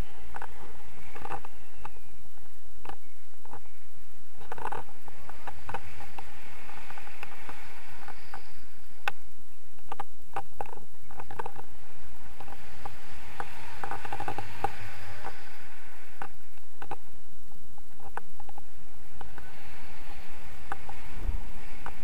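Wind rushing over an action camera's microphone in flight on a tandem paraglider: a steady low rumble and hiss, with scattered clicks and taps throughout.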